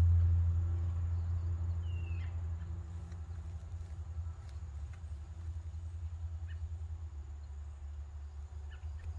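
A low, steady motor hum that fades over the first few seconds and then carries on more quietly, with a single short falling bird chirp about two seconds in.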